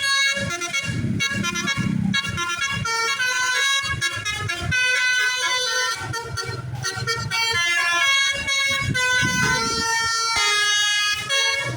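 Bus's basuri telolet horn, a musical horn playing a tune note by note in a series of loud, steady pitched tones that keep changing pitch.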